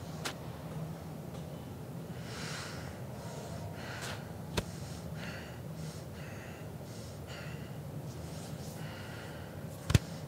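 A man breathing hard through nose and mouth while holding and flexing bodybuilding poses: a string of short, sharp breaths, over a low steady hum. A sharp knock just before the end is the loudest sound.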